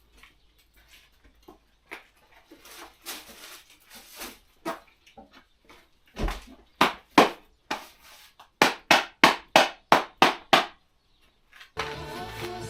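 A series of sharp taps or knocks: sparse and faint at first, then a quick run of about eight strikes, roughly four a second, near the end.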